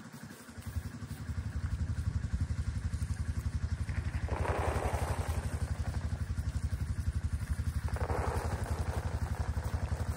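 A small engine running steadily with a fast, even low throb. Two short rushing hisses come about four and eight seconds in as feed is poured from a bucket.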